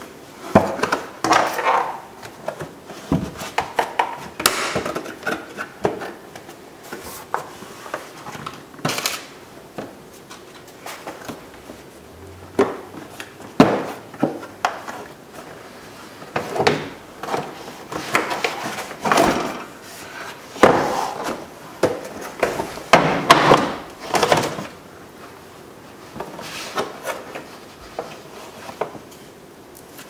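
Hard plastic door trim panel being handled and turned over: irregular knocks, clicks and scraping of plastic parts.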